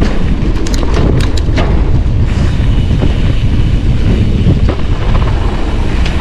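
Wind buffeting the microphone of a camera on a mountain bike descending a dirt trail at speed, with a steady low rumble of tyres on dirt. A few sharp rattles come about a second in.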